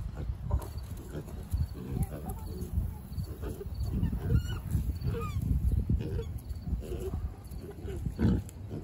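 Farm animals calling: a quick, irregular run of short low calls, with a few rising and falling squeal-like calls near the middle.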